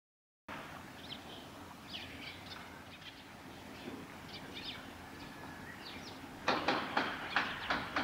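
Short high bird chirps over a low background hum. From about six and a half seconds in, a passing train's wheels clack over rail joints in a quick regular rhythm, the loudest sound.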